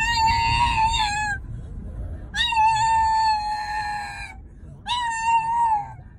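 Pug whining in three long, high-pitched, wavering cries, each a second or two long with short gaps between: the dog pleading to be let out of the car.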